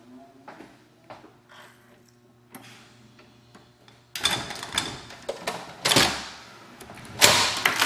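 Door swung open against a door closer with heavy back check: a clack of the door hardware about four seconds in, then knocks and clatter, with a loud bang near the end as the back check stops the swing hard, sounding like it's about to break the door.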